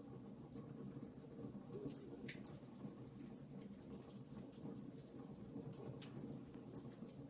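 Wood fire crackling softly: scattered small sharp pops and snaps over a low steady rumble of burning.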